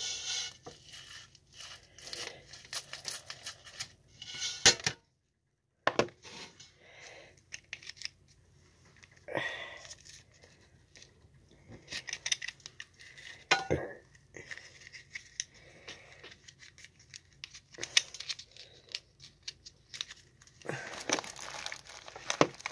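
Hands crinkling and tearing a plastic wrapper and rolling paper, with scattered sharp clicks and taps, while rolling a joint. The sound cuts out completely for about a second, five seconds in.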